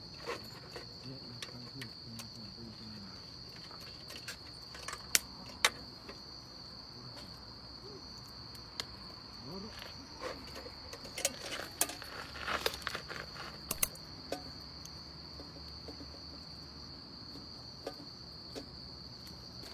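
A steady high-pitched insect chorus, like crickets, running on without a break. Sharp clicks and knocks come now and then over it, most of them clustered a little past the middle.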